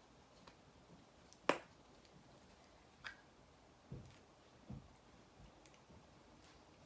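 A few clicks and soft knocks from small objects being handled: one sharp click about a second and a half in, a fainter click about three seconds in, then two soft low knocks.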